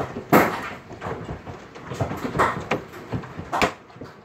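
Big hailstones striking hard surfaces close by: irregular loud knocks, the loudest about half a second in, over the steady hiss of falling rain and hail.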